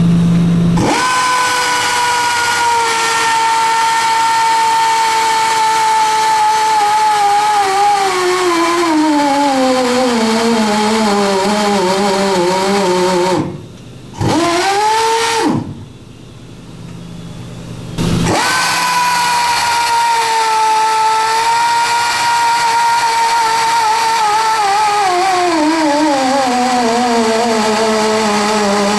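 Powered tube roller expanding a steam locomotive boiler tube into the tube sheet: the motor runs at a steady whine, then slows with a falling pitch over several seconds as it loads up, and stops. A short run follows about halfway through, then after a pause a second run that again slows with falling pitch toward the end.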